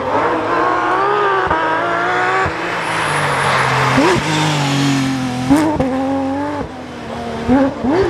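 Porsche 911 GT3 RS rally car's flat-six engine accelerating hard through two upshifts as it approaches. It then passes with sharp, quick rises in revs and fades as it draws away.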